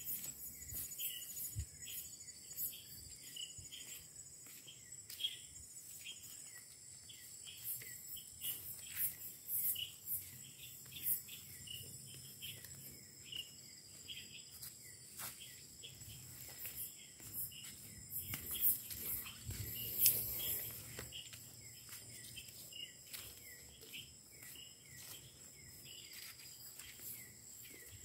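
Night insects, crickets among them, calling in chorus: steady high trills and a chirp repeated about twice a second. Occasional footsteps and rustling vegetation break in, the loudest about two-thirds of the way through.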